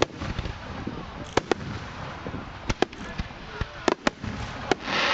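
Aerial firework shells bursting overhead: an irregular series of about a dozen sharp, loud bangs, each with a short echo. Near the end the bangs give way to a dense crackle.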